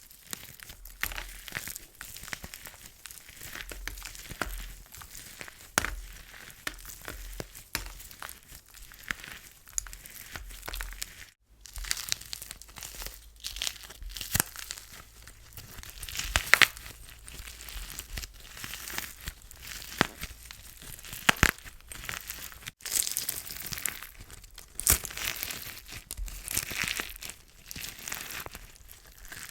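Plaster slime being crushed: continuous crackling and crunching with many sharp snaps, broken by two brief pauses about 11 and 23 seconds in.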